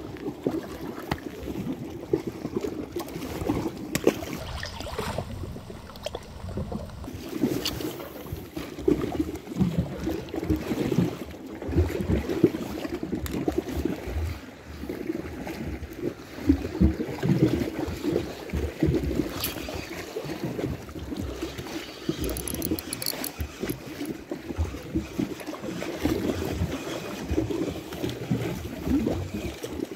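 River water lapping and splashing irregularly at the shoreline.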